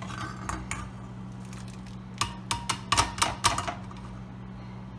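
Metal cookware clanking: a steel china cap strainer and saucepans knocking against each other on the stovetop, a quick run of sharp ringing clanks about two seconds in that lasts about a second and a half. A steady low hum runs underneath.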